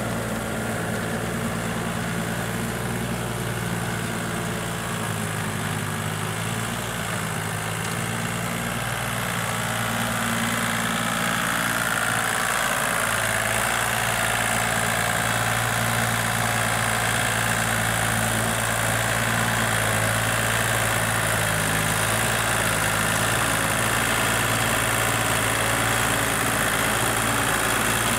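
Kubota compact tractor's diesel engine running steadily while it pulls a rotary tiller through field stubble, getting louder about a third of the way through.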